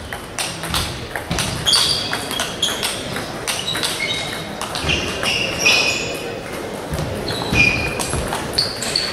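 Table tennis balls clicking irregularly off bats and tables across a sports hall with several tables in play, with short high squeaks now and then.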